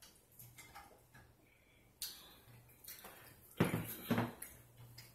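A person eating on camera: soft smacking and clicking mouth and handling noises, with a sharp click about two seconds in. A short, loud, low vocal sound in two pulses comes about three and a half seconds in.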